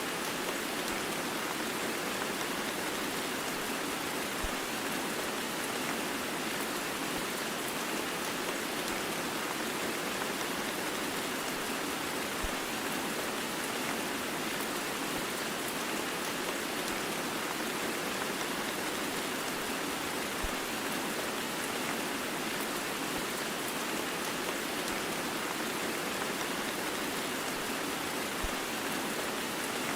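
Heavy rain mixed with white noise: a steady, even hiss that never changes, with a faint low click about every eight seconds.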